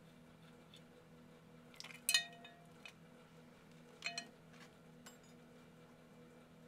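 A steel socket wrench clinking against metal twice: a cluster of sharp clinks with a short ring about two seconds in, and a smaller pair about two seconds later.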